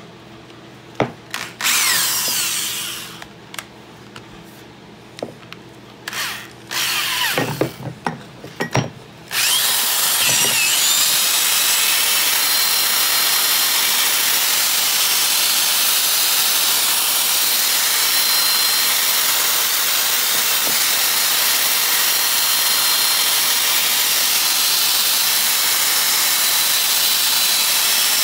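Handheld electric power tool worked against the axe head. It runs in a few short spurts, then from about ten seconds in runs steadily with a thin high whine.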